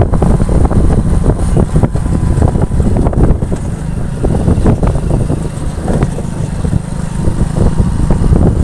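Road vehicle on the move: a loud, steady low rumble of engine and road noise, with frequent irregular knocks and rattles.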